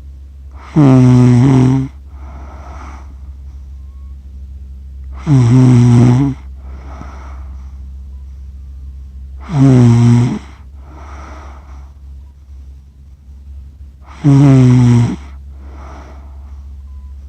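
A person snoring in their sleep: four loud, pitched snores about every four and a half seconds, each lasting about a second and each followed by a softer, breathy breath. A steady low hum runs underneath.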